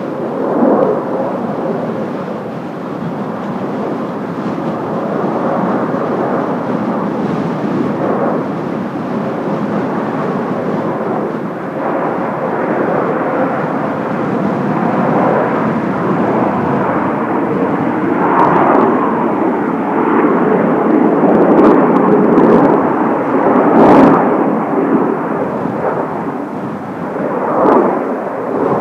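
Turbofan jet noise from a formation of Kawasaki T-4 jets flying over, a continuous rushing sound that swells and fades, loudest about two-thirds of the way through.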